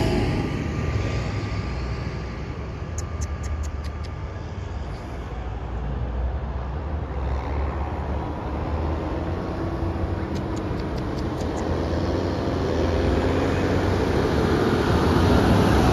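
Tractor diesel engines and car traffic passing on a wet road. The rumble of a passing tractor fades at first, then the next tractor's engine grows louder as it approaches near the end.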